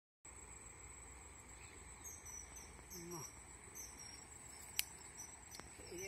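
Insects trilling steadily and high-pitched, with short repeated chirps over them from about two seconds in. A brief bit of a voice comes around three seconds, and a single sharp click near five seconds.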